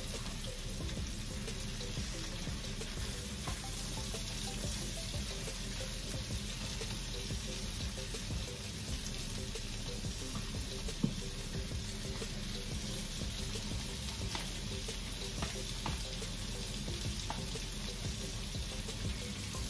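Hamburger patties of ground meat sizzling as they fry in melted butter in a frying pan, a steady hiss with a low hum beneath. A single sharp knock comes about eleven seconds in.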